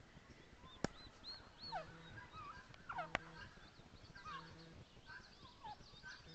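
Faint, scattered high chirps and peeps of small birds, with two sharp clicks about one and three seconds in.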